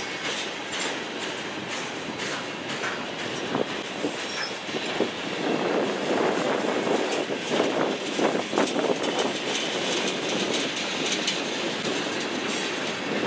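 Freight train tank cars rolling past, their steel wheels clicking over the rail joints in a steady clatter. The clatter grows louder about halfway through.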